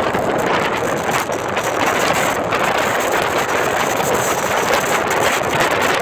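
Strong storm wind in a blizzard buffeting the microphone: a loud, steady rush of wind noise.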